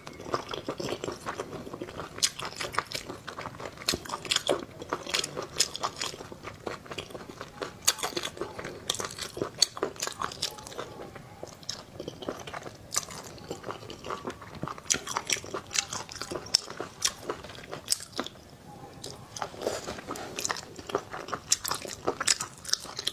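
Close-miked chewing and biting of spicy braised octopus tentacles: an irregular, continuous run of sharp, wet mouth clicks.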